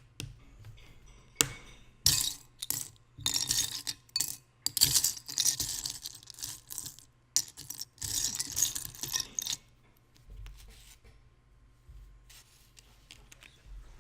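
Small plastic Lego pieces clattering and clicking as they are handled, in several bursts of rattling from about a second and a half to nine and a half seconds in, then a few lighter ticks.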